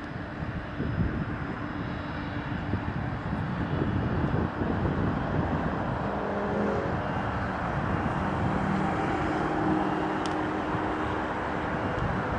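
Jet engines of a Boeing 747 making a steady, broad rush that swells over the first few seconds and then holds, with a few faint pitched tones in the middle.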